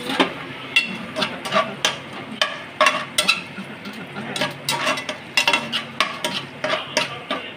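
A spoon stirring and scraping in a cooking pot: an irregular run of sharp clinks and scrapes, two or three a second.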